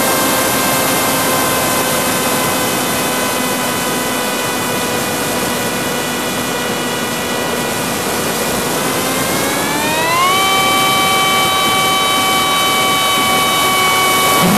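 FPV quadcopter's brushless motors and propellers whining over a steady rush of wind, heard from the camera on board. The pitch sinks slowly, climbs sharply about ten seconds in as the throttle goes up, holds high, then drops right at the end.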